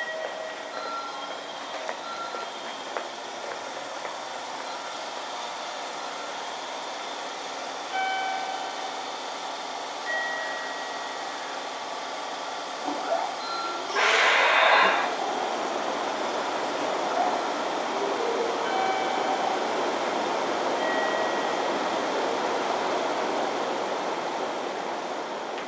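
A JR 313 series electric train standing at a station platform, its equipment running steadily, with scattered short tones over the hum. A little past halfway comes a loud hiss of released air lasting about a second.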